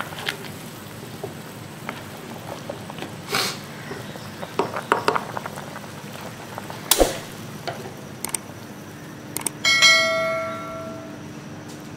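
Potatoes boiling in a pot of water, bubbling steadily, with a few knocks from a wooden spoon against the pot. About ten seconds in, a click and a single bell ding rings out and fades over a second or so: a subscribe-button notification sound effect.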